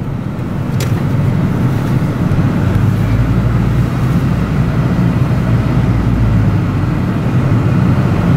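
Steady low rumble of road traffic, growing deeper for a few seconds midway.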